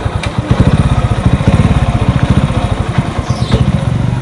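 A small vehicle engine running at a steady speed close by, with a fast, even beat.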